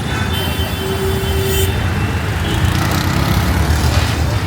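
Road traffic: vehicle engines running past in a steady low rumble, with a brief higher tone lasting about a second and a half near the start.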